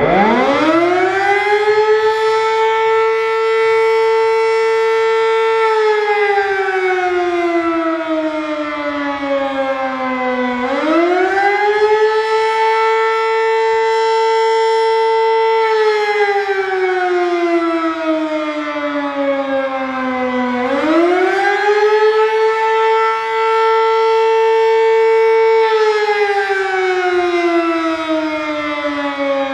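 Sterling M-10 electromechanical siren sounding the attack signal: it winds up from silence to a steady high tone in about two seconds, holds it for about four seconds, then glides down partway before winding back up. The rise, hold and fall repeat about every ten seconds, three times over.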